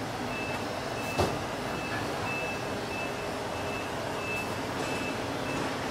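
Street noise with a steady traffic hum. Over it, a short high electronic beep repeats about twice a second, and there is one sharp knock about a second in.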